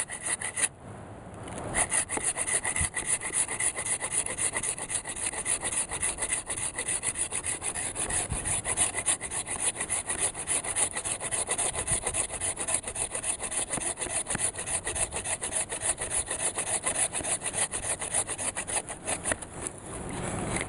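Coghlan's Sierra folding pull-cut saw sawing through a log in quick, even back-and-forth strokes. There is a brief pause about a second in.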